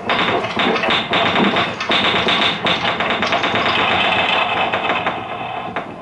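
Upright piano played in a dense flurry of fast, repeated, tapping notes in the middle and upper register, easing off in the last second.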